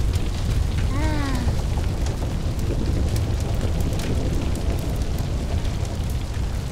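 A large house fire burning: a steady deep roar with crackling pops throughout. About a second in, a short cry rises and then falls in pitch.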